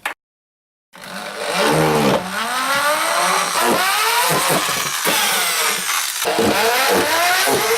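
A motor revving up and down again and again, its pitch rising and falling many times, starting about a second in after a moment of silence.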